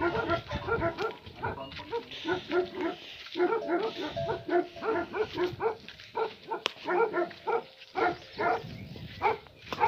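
Tibetan mastiff giving a run of short barks, about two or three a second, easing off near the end.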